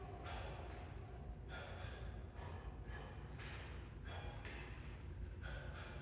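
A man breathing hard while shadowboxing: sharp, hissing exhales at irregular spacing, about one a second, over a low steady hum.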